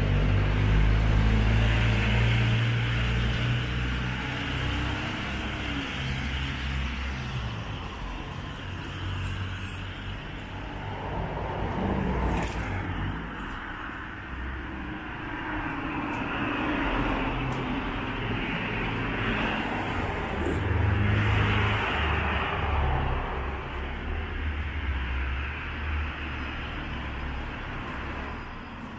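Road traffic: cars passing one after another under a constant low rumble, each one swelling and fading away.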